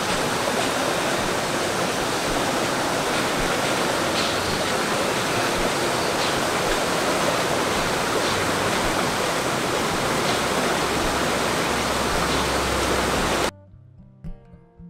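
Rushing river water, a steady wash of noise, cut off suddenly near the end by quiet acoustic guitar music.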